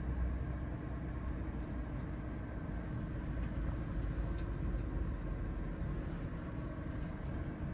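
Steady low rumble inside the cab of a Nikola hydrogen fuel-cell electric semi truck as it is driven, with no combustion engine note.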